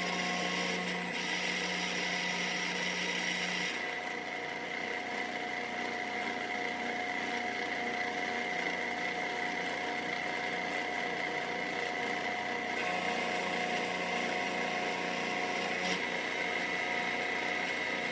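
CNC router spindle running steadily with a high whine while milling a part, the pitch of the cutting and the low motor tones shifting a few times as the tool path changes, about four seconds in and again near thirteen and sixteen seconds.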